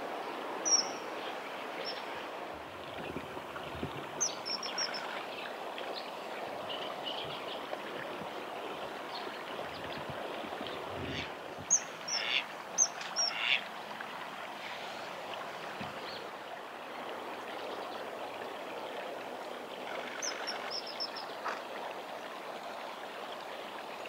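Common kingfishers giving high, thin whistled calls in short runs, a few times through the stretch and loudest about twelve seconds in, over the steady rush of a shallow stream.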